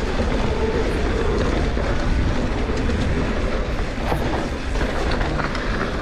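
Mountain bike ridden fast over a rough dirt trail: a steady rumble of tyres and wind on the action camera's microphone, with scattered clicks and rattles from the bike.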